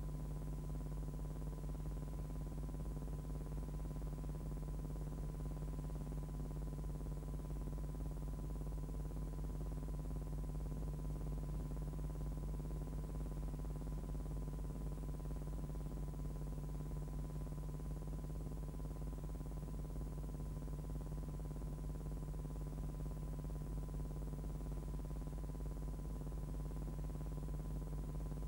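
Steady low electrical hum with a faint, steady high tone above it and no other sound: a soundtrack carrying no recorded sound, only noise from the transfer.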